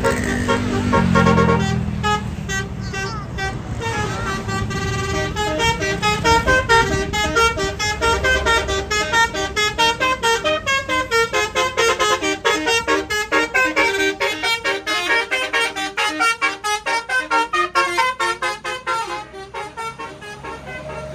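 Bus basuri telolet horn, a multi-tone horn, playing a quick melody of short notes stepping up and down in pitch. The notes turn into fast, choppy pulses in the second half and fade near the end. A low tone sounds in the first two seconds.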